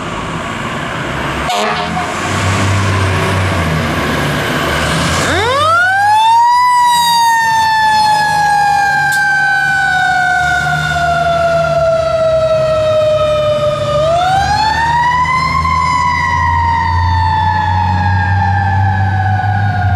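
Fire truck siren winding up about five seconds in, the pitch rising quickly and then falling slowly. It winds up a second time about fourteen seconds in and falls off again. A steady diesel engine hum runs underneath, and before the siren starts only the engine and road noise are heard.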